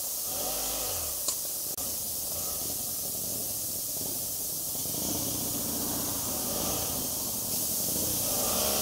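Steady hiss of wind and road noise on a motorcycle-mounted microphone while riding slowly between stopped cars, with the bike's engine humming low underneath. A couple of small clicks come between one and two seconds in.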